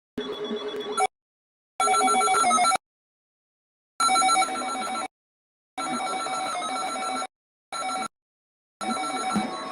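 Electronic ringing alert tone sounding in repeated bursts of about a second, each cut off abruptly with complete silence between.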